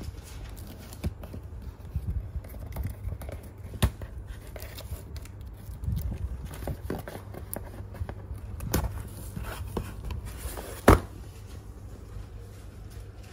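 Cardboard shipping box being opened by hand: a pen scraping through the packing tape and the cardboard flaps scuffing and being pulled open, as a string of short scrapes and clicks. The sharpest click comes near the end, over a steady low hum.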